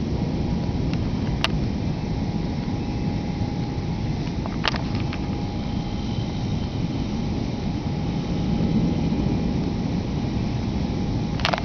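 Storm wind buffeting the microphone as a steady low rumble, swelling a little near the end, with a few sharp clicks.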